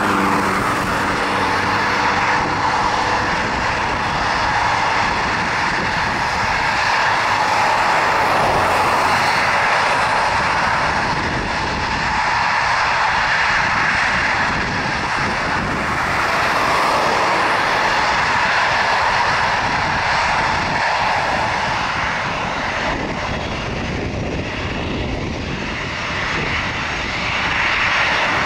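Boeing 737-800's CFM56-7B turbofan engines running at taxi power, a steady jet whine and hiss that swells and eases gently as the airliner taxis.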